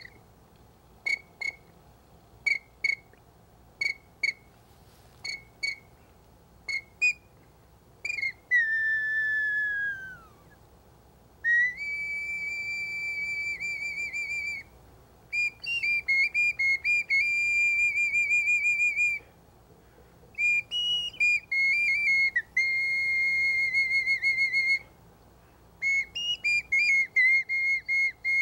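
Bird flute played solo: pairs of short high chirps repeated about every second and a half, then one long falling slide, then long warbling, trilled notes held on one high pitch and broken into quick runs.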